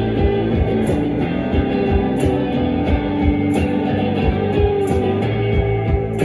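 Live rock band playing loudly: several electric guitars over a steady beat.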